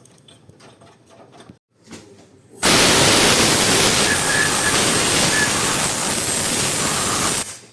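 A high-pressure jet hissing loudly and steadily: it starts abruptly a little over two and a half seconds in and cuts off sharply near the end, with only faint workshop rustle before it.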